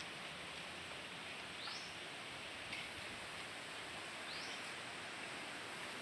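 Steady rush of flowing river water. A bird gives a short rising call twice, about two and a half seconds apart.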